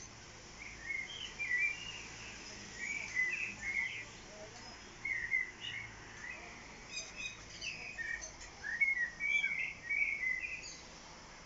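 Songbirds chirping and singing in short, quick phrases every second or two, over a faint steady outdoor hiss.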